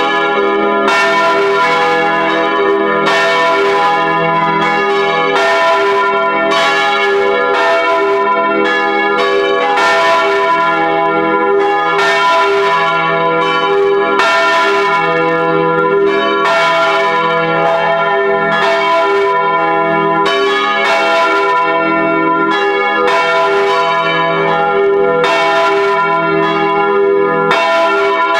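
Full peal of four swinging bronze church bells tuned e', g-sharp', b' and c-sharp', cast in 1949 by the Junker foundry in Brilon, heard close up in the belfry. Clapper strikes from the different bells overlap in an uneven rhythm, each leaving a long ringing tone, so the sound never dies away.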